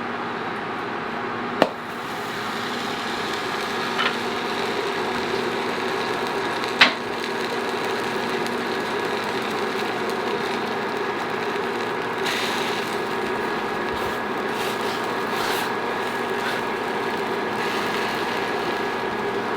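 Steady machine-like kitchen hum while a buttered bun toasts in a pan, with three sharp knocks in the first seven seconds, the loudest about seven seconds in.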